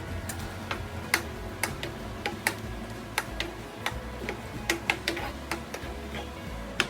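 A cooking utensil tapping and clicking against a pan, about a dozen sharp, irregular clicks, over a low steady hum.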